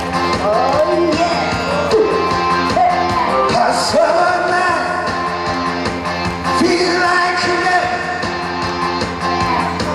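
A man singing a pop song through a handheld microphone over loud backing music with a steady beat.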